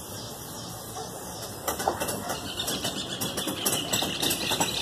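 Metal hook and fittings of a cargo strap clicking and rattling as they are handled and the strap is pulled tight. The clicks are irregular, start about two seconds in and grow busier towards the end.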